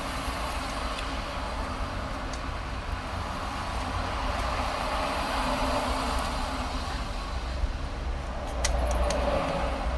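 Steady noise of motorway traffic passing, slowly swelling and fading as vehicles go by, with a few faint small clicks near the end.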